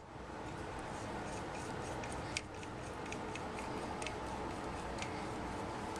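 Small irregular metal ticks and clicks as the burst-disc nut is turned by hand back onto the valve head of an avalanche-airbag air cylinder, with one sharper click about two and a half seconds in, over a steady background hum.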